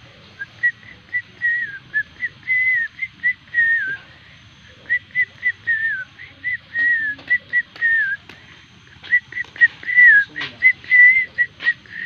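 A person whistling a long string of short, high notes, many sliding downward, in quick groups with short pauses between them.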